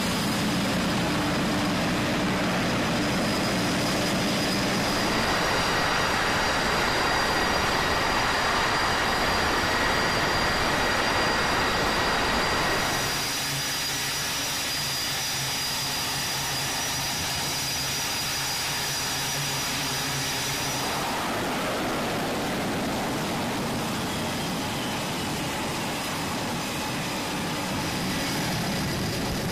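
Jet engines running on an aircraft carrier's flight deck: a steady roar with a high, even whine. The mix shifts abruptly a few times, at about 5, 13 and 21 seconds in.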